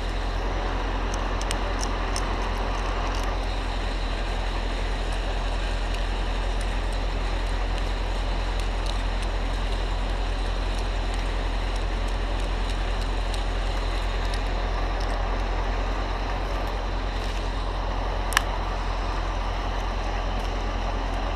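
Crane engine running steadily at a constant pitch, with one sharp click near the end.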